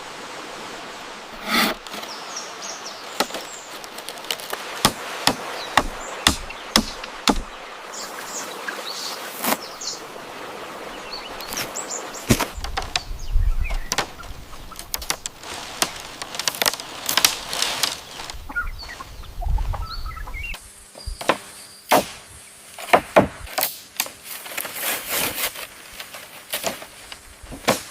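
Irregular sharp knocks and taps, some in quick runs, over an outdoor background with faint bird chirps.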